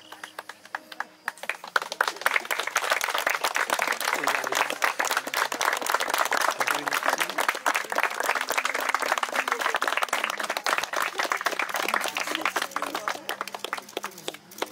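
A crowd of guests applauding: many hands clapping together. It swells about two seconds in, stays steady, and tapers off near the end.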